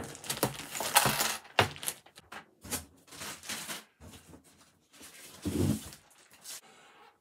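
Hard plastic CGC comic slab cases and their packing being handled: a quick run of clicks, clacks and rustles that cuts off suddenly near the end.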